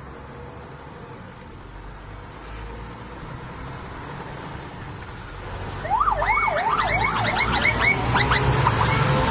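Scania trucks' diesel engines rumble louder as they approach. About six seconds in, a loud siren-style horn starts, wailing rapidly up and down about four times a second, then breaks into quicker choppy notes.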